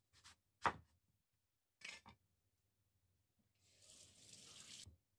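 A few faint knocks of a halved papaya being handled on a kitchen board, the clearest about a second in. Near the end comes about a second of faint hiss of running tap water as the papaya is rinsed.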